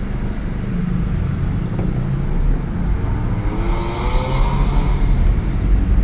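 Steady rumble of a vehicle travelling on a road. About halfway through, an engine note rises in pitch and a rush of tyre and wind noise swells and fades, like a vehicle passing close by.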